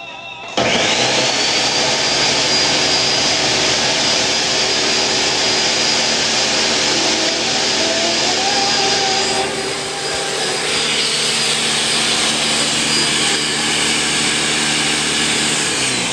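Electric blender running at high speed, blending a chipotle-and-milk sauce. The motor whines up about half a second in, runs steadily and loud with a high whine, then winds down near the end.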